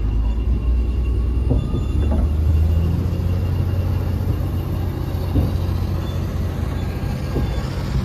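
Komatsu D85EX bulldozer's diesel engine running steadily under load with a deep drone, along with the rumble of its tracks and a few short knocks.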